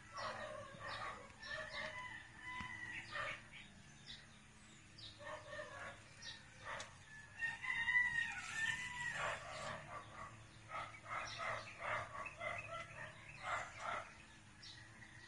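Chickens clucking in a run of short calls, with a rooster crowing once in a longer call about eight seconds in.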